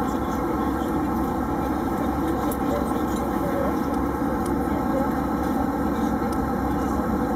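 Steady drone of an Airbus A320's cabin in flight: jet engine and airflow noise heard from a passenger seat, even and unchanging.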